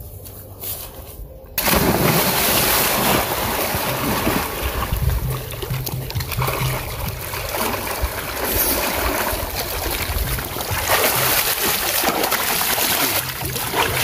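Water splashing steadily, starting abruptly about a second and a half in.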